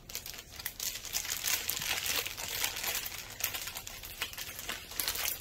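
A clear plastic bag crinkling as hands handle and press on it: a dense, continuous rustle of small crackles.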